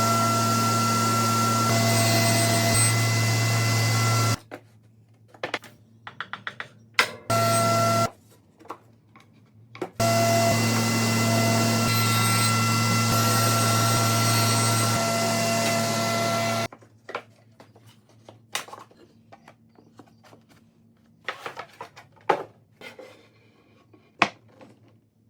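An electric power tool's motor running steadily with a constant hum. It is switched off after about four seconds, run briefly again, then runs for another six or seven seconds before stopping. Clicks and knocks of handling fill the gaps between runs.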